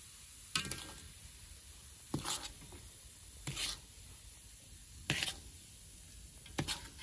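A kitchen utensil scraping and knocking against cookware in short strokes, five times, about one every second and a half, over a faint steady hiss.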